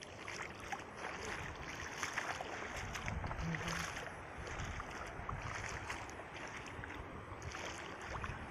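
Rushing noise of fast-flowing floodwater, with wind buffeting the microphone and a few light knocks.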